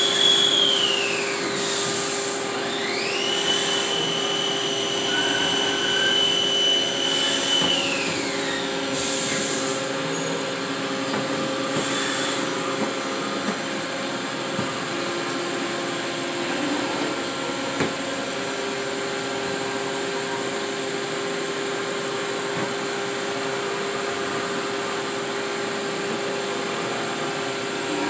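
Haas VF-2SS CNC vertical mill running, a steady machine hum throughout. A high spindle whine falls away about a second in, climbs again near three seconds, holds, then winds down around eight seconds. After that only the steady hum remains.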